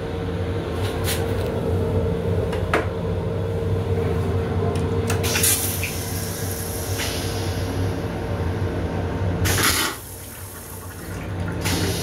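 An M7 railcar's stainless-steel toilet flushing. Rinse water runs into the bowl over a steady mechanical hum, and a loud rush just before ten seconds in ends the flush as the bowl drains.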